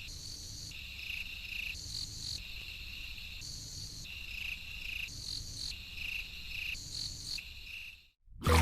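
High, rhythmic chirping like crickets at night, in trills about a second long repeating every second and a half or so, over a faint low hum; it cuts off abruptly about eight seconds in.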